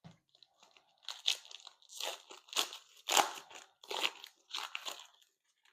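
Foil trading-card pack wrapper being crinkled and torn open, a run of crackling crunches about every half second.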